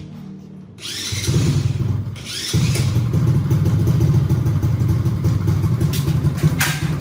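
Small underbone motorcycle engine being started, catching about a second in and then running steadily.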